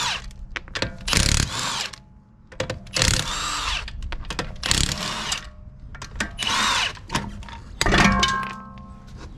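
A Milwaukee cordless impact wrench loosening a car's wheel bolts. It runs in about six short bursts, each under a second, with brief pauses and small clicks between them.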